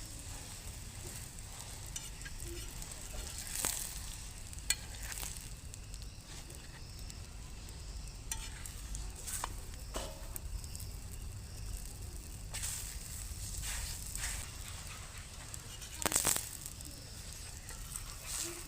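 Chapatis frying in cooking oil on a pan: a steady sizzle, with a few short sharp clicks scattered through it.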